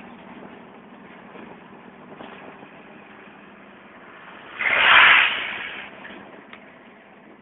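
Road and traffic noise heard during a ride through city streets. About four and a half seconds in, a loud rush swells up and fades over the next second or so.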